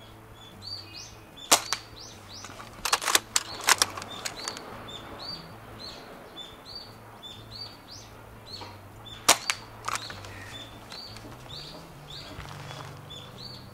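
Sharp snaps from a Snow Wolf SV-98 airsoft bolt-action sniper rifle being fired during a grouping test: one snap about a second and a half in, a quick cluster around three to four seconds, and two more near nine and ten seconds. A faint bird or insect chirp repeats about twice a second underneath.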